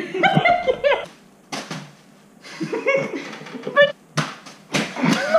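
People laughing and making short vocal sounds, with a few sharp knocks in between.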